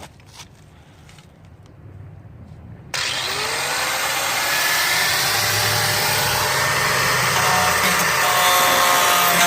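A power tool switches on suddenly about three seconds in, its whine rising as it spins up, then runs loud and steady with a noisy, whining tone.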